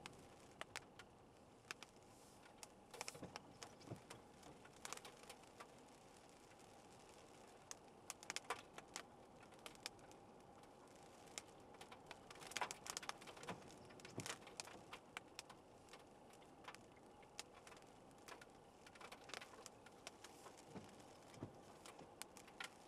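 Faint, irregular tapping of raindrops on the car's roof and windshield, heard inside the cabin over a low steady hum of the moving car.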